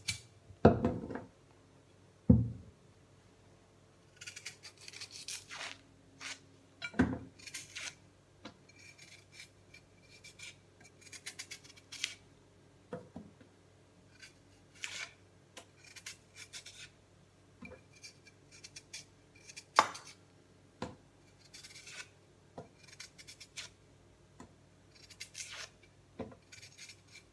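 Kitchen knife peeling the skin off a jicama, making short, repeated scraping strokes about once a second. Two loud knocks come in the first two and a half seconds.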